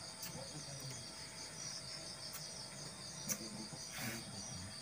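Faint, steady chorus of crickets chirping with an even pulse, and a single short click a little over three seconds in.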